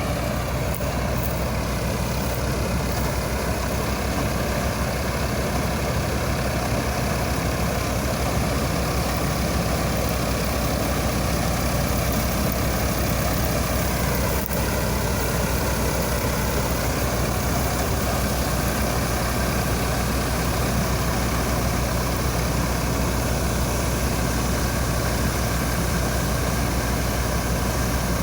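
Small combine harvester running steadily, a continuous even engine and machinery sound with one brief click about halfway through.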